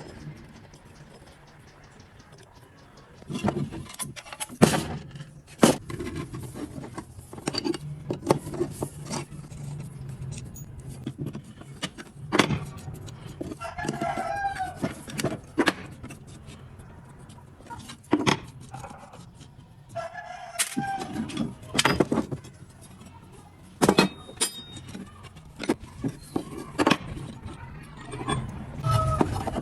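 Irregular sharp metallic clanks and knocks of tools and metal parts being handled while an electric wire winch is repaired. A rooster crows twice in the background, about halfway through and again about two-thirds in.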